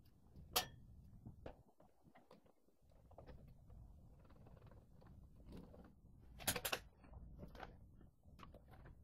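Small metallic clicks and taps of parts being handled while the front brake cable is fitted to the brake arm on a Honda C90's front drum brake panel: one sharp click about half a second in and a quick cluster of clicks about two-thirds of the way through.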